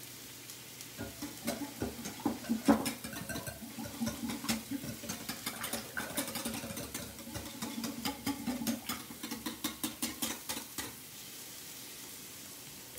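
Wire whisk beating a vinaigrette in a glass bowl: rapid clicking of the wires against the glass with liquid swishing. It stops about two seconds before the end.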